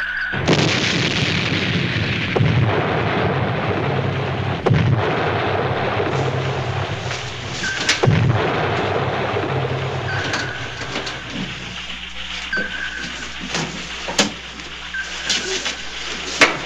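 Depth charges exploding around a submerged submarine: a long rumbling boom about half a second in, with fresh blasts near five and eight seconds, dying away after about twelve seconds. A short high tone recurs every couple of seconds, with scattered clicks.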